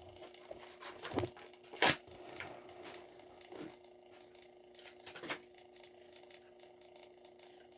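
Hot Wheels blister pack being handled and opened: scattered crinkles and clicks of plastic and cardboard, the sharpest about two seconds in, over a faint steady hum.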